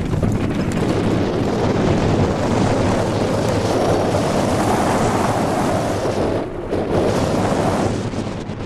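Wind rushing over the microphone of a hang glider in flight: a steady, loud rush of air that dips briefly about six and a half seconds in and again near the end.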